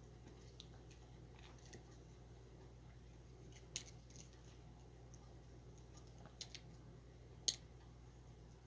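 Near silence: a steady low hum with a few sharp clicks, the loudest about four seconds in and another near the end.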